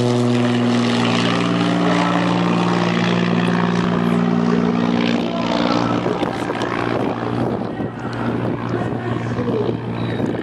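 Light single-engine propeller aircraft passing low overhead, its engine and propeller making a steady drone. After about six seconds the drone weakens and turns rougher and noisier.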